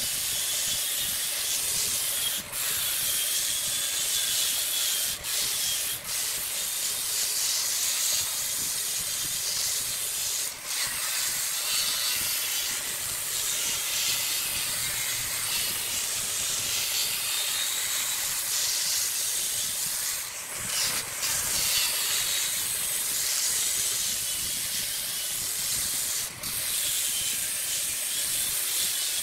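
Angle grinder with a sanding disc pressed against a wooden vase blank spinning on a lathe: a steady, hissing sanding noise that dips briefly a few times as the disc shifts on the wood.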